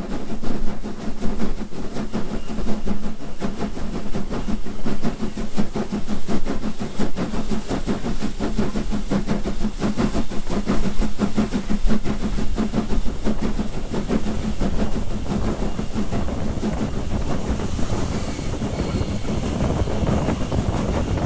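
Southern Railway S15 class 4-6-0 steam locomotive No. 506 working hard up a steep gradient: a rapid, steady beat of exhaust chuffs and wheels clicking over the rail joints. Wind rushes on the microphone near the end.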